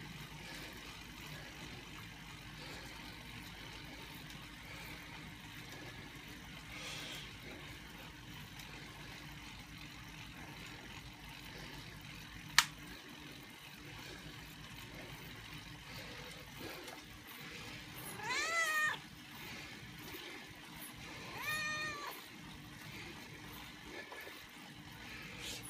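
Tabby cat meowing twice in the last third, two short calls that rise and fall, with one sharp click about halfway through.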